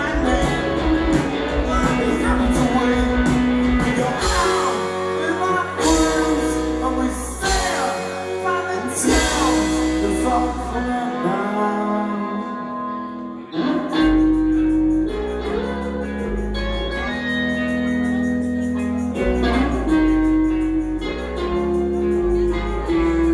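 Rock band playing live: electric guitars, bass guitar and drums, with a male lead singer singing over them. The band drops back briefly about two-thirds of the way through, then comes back in at full volume.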